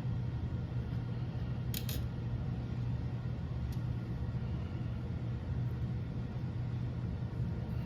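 A steady low hum of background noise throughout, with a sharp click just before two seconds in and a fainter one a couple of seconds later: small screws and washers being handled during the motor mount install.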